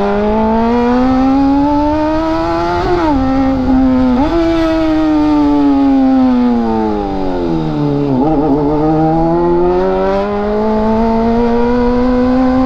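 Honda CBR motorcycle engine accelerating through the gears. Its pitch climbs, drops sharply at a shift about three seconds in and again about a second later, sinks slowly as the bike slows to around eight seconds, then climbs again.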